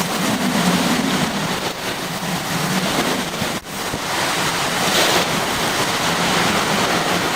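Hurricane eyewall wind and driving rain battering a vehicle, a loud, steady rushing noise with a brief lull about three and a half seconds in.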